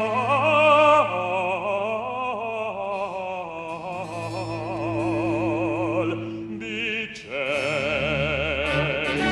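Operatic bass voice singing long held notes with wide vibrato over baroque orchestral accompaniment. There is a short break about seven seconds in before another long note.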